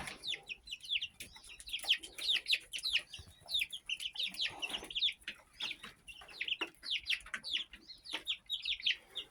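A flock of baby chicks peeping: many short peeps, each falling in pitch, overlapping one another.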